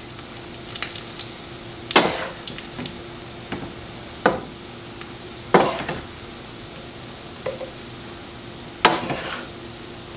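Stir fry sizzling in a frying pan while a wooden spatula scrapes and tosses it, in separate strokes every second or two over a steady sizzle. The loudest strokes come about 2, 5.5 and 9 seconds in.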